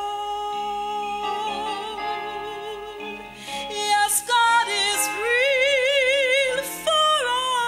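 A woman singing a gospel melody in long held notes with wide vibrato, the highest and longest note about two thirds of the way through, then a falling phrase. Sustained chords from a Roland D-50 synthesizer keyboard accompany her.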